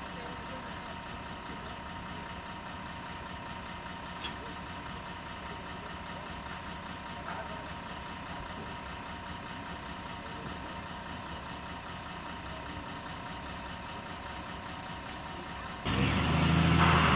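Heavy truck's diesel engine idling steadily. About a second before the end the sound jumps suddenly much louder, with the engine running harder.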